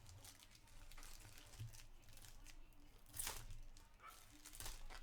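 Hockey card pack wrapper being torn open and crinkled by hand, with several short rips among soft rustling; the loudest rip comes about three seconds in.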